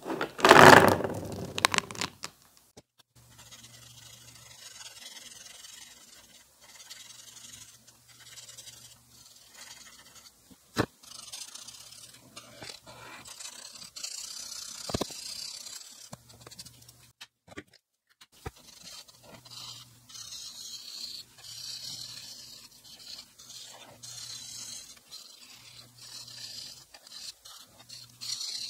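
Marker tips scratching and rubbing on paper in short back-and-forth strokes as colour is filled in, with a couple of sharp clicks along the way. It opens with a loud clatter of handling for about two seconds.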